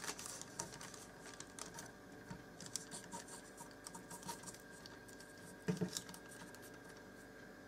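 Fingers rolling and pressing puff pastry around a sausage on a board: faint scratching and light taps, with one louder knock about six seconds in.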